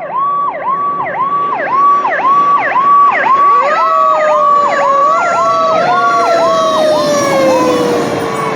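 Emergency-vehicle sirens: one siren cycles quickly, about twice a second, and a few seconds in a second siren comes in with a steady tone that rises, then slowly winds down.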